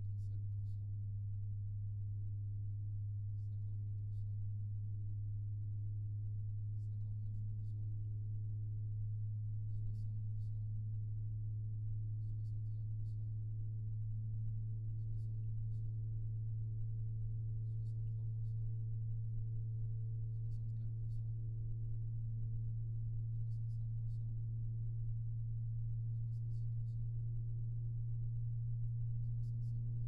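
Arctic P120 PWM 120 mm PC fan recorded at about 1 cm, running with a strong steady low hum and fainter higher tones. The higher tones shift every few seconds as the fan's speed is stepped up, each step marked by a faint tick, and the sound grows slightly louder.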